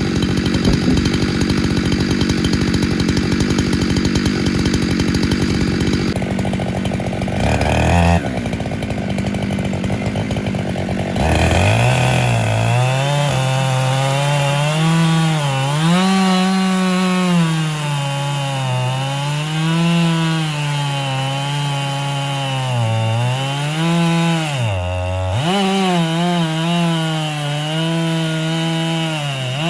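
Husqvarna 592XP chainsaw on an Alaskan chainsaw mill running hard through a log. The sound changes partway through, with a brief drop in pitch about eight seconds in. From about twelve seconds the engine speed rises and falls again and again.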